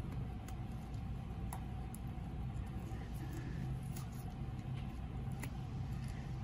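Steady low background hum with a faint higher tone running through it, and a few scattered faint clicks from a metal dissecting probe and gloved hands working at the fetal pig's cheek.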